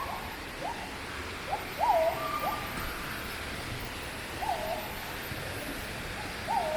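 Wild animals calling in forest: a series of short, quick upward-sweeping notes mixed with a few looping notes that dip and come back up, over a steady hiss.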